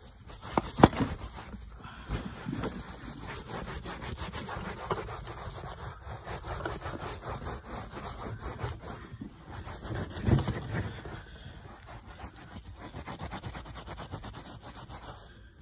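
Hand scrub brush rubbed rapidly back and forth over car carpet, agitating sprayed carpet cleaner into the fibres. A couple of louder knocks stand out, about a second in and again about ten seconds in.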